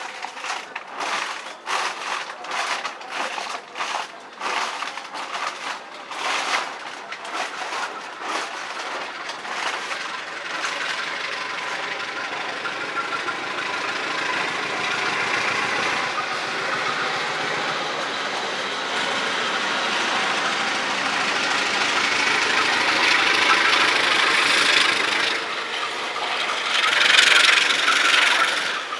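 A train running along the rails: a rapid run of wheel clicks over the rail joints for the first ten seconds or so, then a steady rush of rail noise that slowly grows louder, with a brief louder burst near the end.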